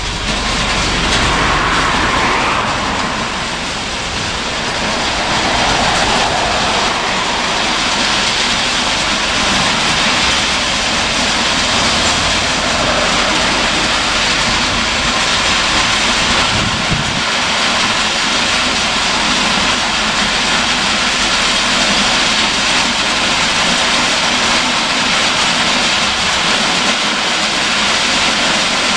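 Train of ballast hopper wagons rolling slowly past, a steady noise of steel wheels on the rails with faint squeal near the start.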